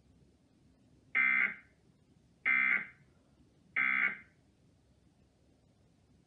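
Three short, identical warbling data bursts of an Emergency Alert System End-of-Message (EOM) SAME signal, about 1.3 seconds apart, marking the end of the alert broadcast.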